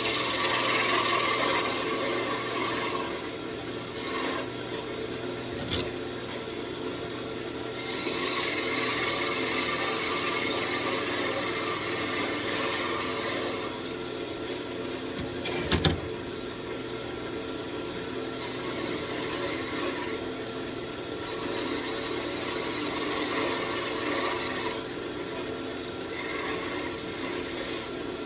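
Wood lathe running with a steady motor hum while a tool is worked against the spinning walnut wand blank in scratchy passes of a few seconds each, shaping its crown. There are a couple of brief sharp knocks, one about six seconds in and one about sixteen seconds in.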